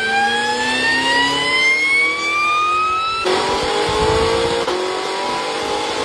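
Supercharger whine on an accelerating car: a loud tone with several overtones, climbing steadily in pitch. A little past halfway it drops to a lower pitch with more engine and road noise mixed in, then starts climbing again.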